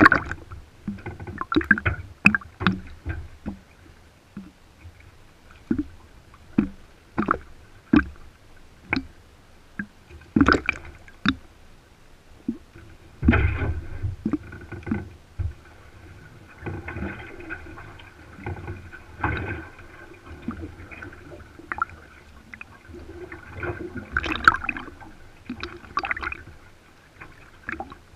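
Lake water slapping, splashing and gurgling against the side of a metal canoe hull as it is paddled along, with irregular sharp splashes. A louder low rumble comes about halfway through.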